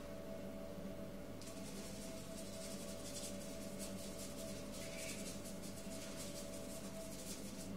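Quick repeated strokes of a drawing or painting tool scratching across paper on an easel, starting about one and a half seconds in and stopping near the end, as colour is scrubbed into the picture. A steady low hum sits underneath.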